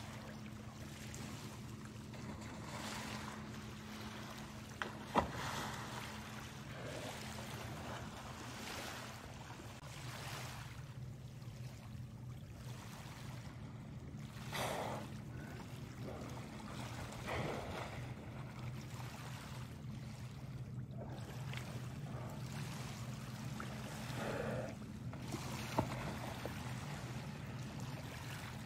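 Small waves lapping on a pebble shore over a steady low hum, with several short breathy whooshes spread through and a few sharp clicks.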